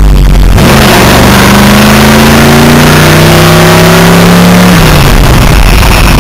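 1978 GMC pickup's engine pulling hard under acceleration, heard loud from inside the cab: its note climbs steadily for about four seconds, then drops away about five seconds in.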